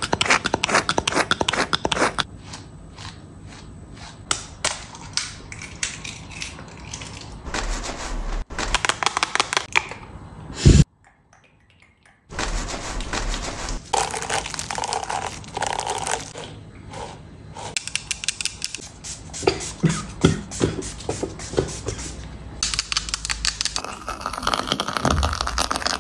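Close-up handling of hair-care tools: rapid clicking, tapping and scratching of plastic and bristles, with crackling. A single loud knock comes a little before the middle, followed by a second or so of silence before the scratching picks up again.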